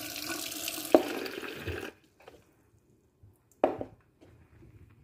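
Tap water running into a sink and over a basin of sprouting mung beans, cutting off suddenly about two seconds in. A sharp knock sounds about a second in, and another at about three and a half seconds.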